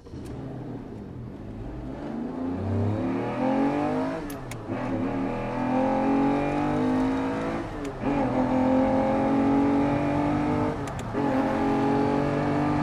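A racing engine accelerating hard up through the gears, its pitch climbing and then dropping sharply at three gear changes, roughly every three seconds.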